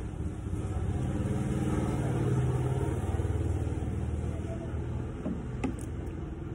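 Low rumble of a motor vehicle engine that swells about two seconds in and then fades, with a single sharp click near the end.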